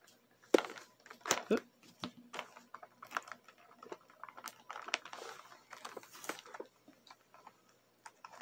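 A toy blister pack being cut open with scissors and handled on a table: sharp knocks and clicks of cardboard and plastic, the loudest about half a second and a second and a half in, then scattered snips and ticks with a stretch of crinkling.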